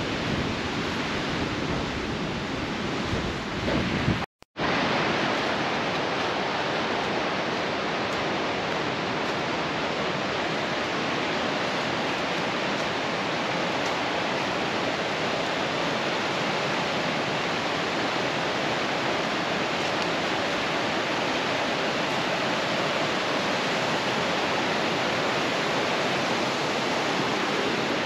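Rocky mountain stream rushing steadily over stones, an even, unbroken water rush. About four seconds in, the sound drops out briefly at an edit. Before the dropout the rush is rougher, with low rumbling from wind on the microphone.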